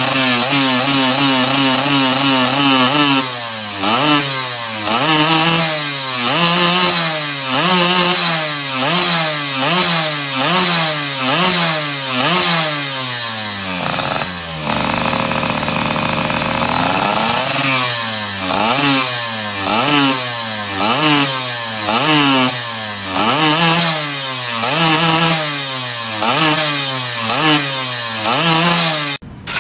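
Yamaha F1ZR's 110 cc two-stroke single-cylinder engine breathing through an aftermarket Creampie racing exhaust, revved in quick throttle blips about once a second. Revs hold steady at first, settle for a few seconds midway, then the blipping resumes.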